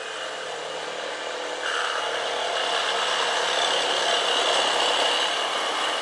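HILTI 22 V cordless reciprocating saw, on regular (non-orbital) stroke, cutting through galvanized steel pipe. The cut gets louder about two seconds in, with a steady high tone over the noise of the blade.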